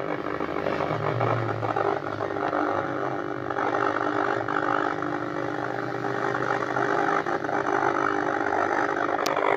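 Samsung CS14F10MJ 14-inch CRT television's speaker putting out a loud, harsh, noisy buzz with steady humming tones instead of clear sound. This is the sound fault the set has.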